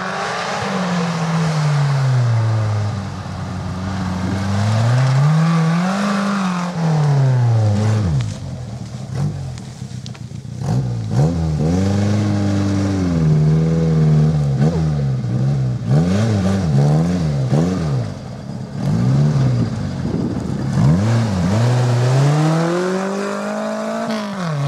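Off-road 4x4's engine revving up and down again and again. In the middle comes a quick run of short rev blips, and near the end a long climb in revs.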